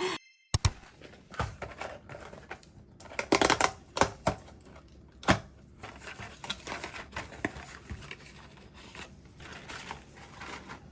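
Irregular light clicks, taps and rustles of small things being handled. There is a sharp tap about half a second in, a quick cluster around three and a half seconds, and another sharp tap a little past five seconds.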